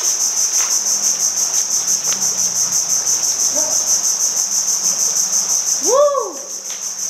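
Insects chirring loud and steady in a high-pitched, rapidly pulsing chorus, which dips briefly about six seconds in. A short rising-then-falling call sounds at the dip.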